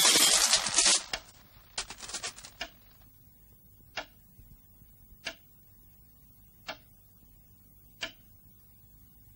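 Cartoon sound effects: a loud noisy crash that dies away about a second in, a brief clatter around two seconds, then four single clock-like ticks, slow and evenly spaced about a second and a half apart.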